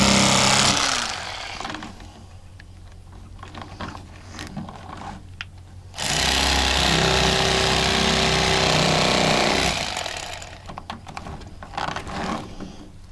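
Rapala electric fillet knife running as it cuts a walleye fillet, a steady motor buzz in two spells: briefly at the start, then again for about four seconds from the middle. In between it is quieter, with small knocks and clicks.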